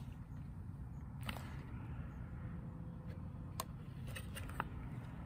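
A few faint clicks and light handling noise from a folding paper fan with plastic sticks being turned over in the hands, over a steady low rumble.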